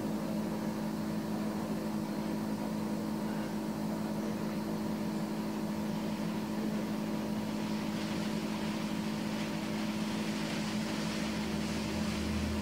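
Steady machine hum, like a motor running at an even speed, with an unchanging drone; a hiss rises over it about two thirds of the way through and a low rumble joins near the end.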